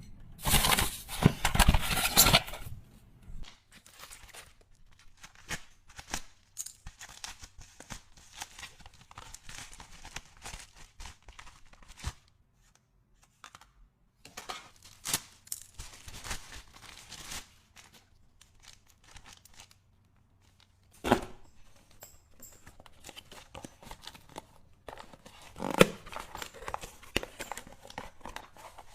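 Packaging being opened by hand: a loud tearing rip in the first couple of seconds, then intermittent crinkling and rustling. There is a sharp knock about 21 seconds in, and a louder burst of crinkling around 26 seconds.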